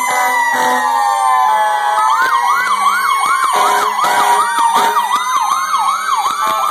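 Sirens of several fire engines sounding together: slow wails gliding in pitch, joined from about two seconds in by a fast yelp sweeping up and down about two and a half times a second, which stops shortly before the end.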